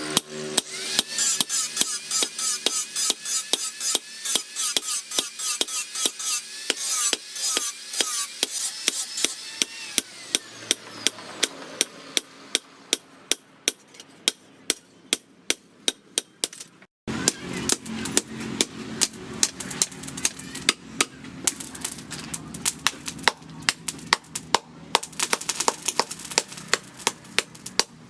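Hand hammer striking the steel of a bearing being forged into a knife on an anvil: a steady run of sharp, ringing blows, several a second, with a brief break about seventeen seconds in.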